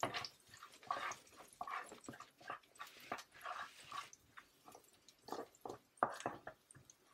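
A spoon stirring chopped garlic in hot oil in a pan: short, irregular scrapes and clicks against the pan, fading near the end.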